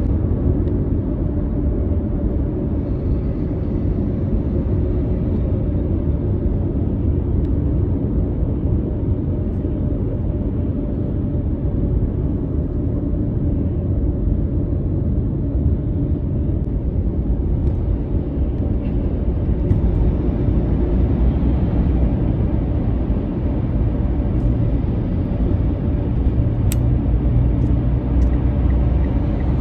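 Steady low rumble of road and tyre noise heard from inside a car cruising at highway speed. It grows heavier in the last few seconds as the car drives into a tunnel.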